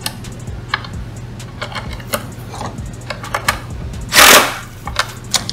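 Cordless drill with a socket bit running a nut onto a tail-light housing stud in one short spin of about half a second, a little past the middle. Light clicks and knocks of the plastic housing being handled come before and after, over a steady low hum.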